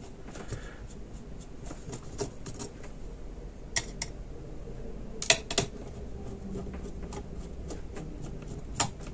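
Small clicks and taps of a screwdriver and handled metal as screws are undone from a laptop's cooling fan and heatsink assembly. A few sharper clicks stand out, about four seconds in, twice a little after five seconds, and near the end.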